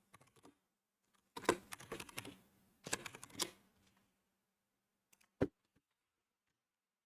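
Computer keyboard typing: two short runs of quick key clicks, then a single sharp click near the end.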